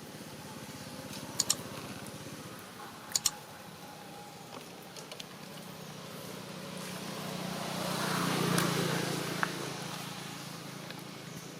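A vehicle passing by, building to its loudest about eight seconds in and then fading, over a low steady hum. Earlier come two sharp double clicks.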